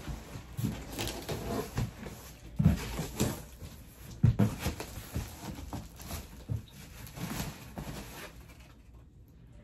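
Flat cardboard packing pieces and plastic wrap being handled as a large box is unpacked: irregular scrapes, rustles and knocks, with two sharp bumps a few seconds in, growing quieter near the end.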